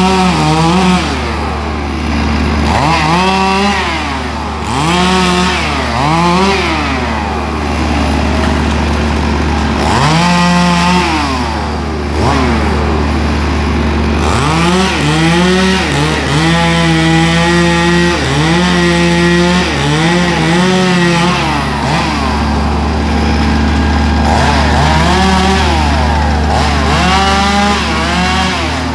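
Chainsaw cutting tree branches, revved up and down in repeated short bursts, with several seconds held at full throttle around the middle. A steady low engine hum runs underneath.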